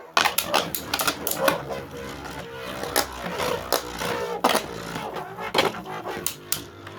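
Two Beyblade spinning tops battling in a stadium: a rapid, irregular run of sharp clicks as they strike each other and the stadium walls, over a steady spinning whir.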